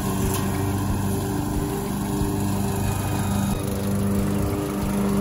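Riding lawn mower's engine running steadily at high throttle as the mower drives through and mows tall grass and weeds.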